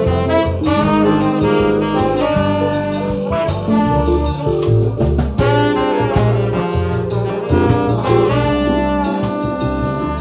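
A jazz big band playing live: saxophone, trombone and trumpet sections in full, sustained chords that change every second or so, over keyboard, guitar, bass and drums.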